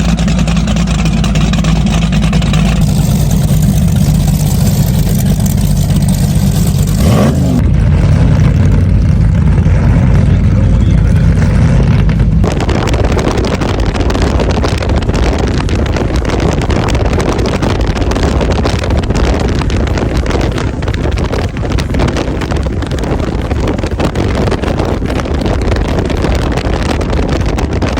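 Twin supercharged Mercury Racing engines of a 42-foot Cigarette Tiger powerboat running loud, a deep steady drone. About twelve seconds in, a dense rush of wind and water noise takes over on top of the engines.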